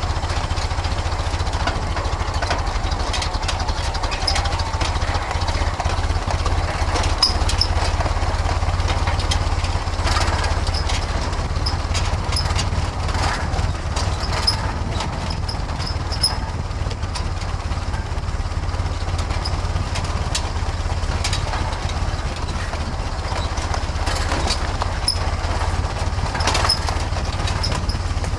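A 1931 Ford Model A's four-cylinder flathead engine runs steadily as the open rat rod drives over a rough dirt track, with scattered short clicks and knocks.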